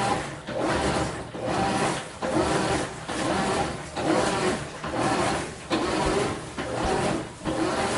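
GE top-load washer (model GTW335ASN0WW) agitating a load of clothes in deep water, its agitator churning back and forth in even, repeating strokes, each a swish with a motor whir. Pretty loud for a washing machine.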